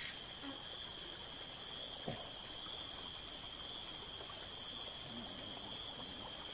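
Insect chorus in tropical forest: a steady, high-pitched trilling with a faint pulse about three times a second.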